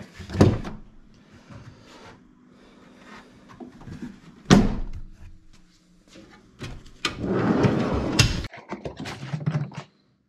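Jeep Wrangler's rear swing-out tailgate slammed shut with heavy thuds, twice about four seconds apart. The door binds and needs a forceful shove to close. Near the end comes a longer clattering scrape that ends in a knock.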